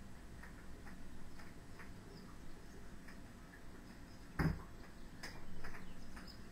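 Juggling balls landing in the hands with soft ticks in a steady rhythm, and one sharp thump about four and a half seconds in.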